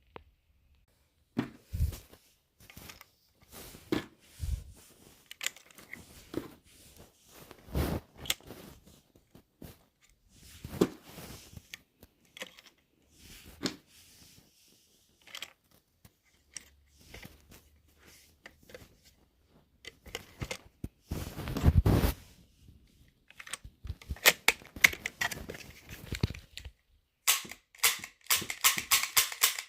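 Plastic toy guns being worked by hand: a long irregular series of clicks and clacks, with a dense thud near the middle and a fast run of clicks near the end.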